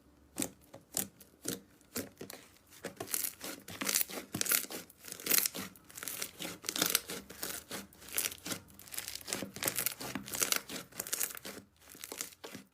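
Slime being squeezed and stretched by hand, giving a dense, irregular run of sticky pops and crackles, several a second.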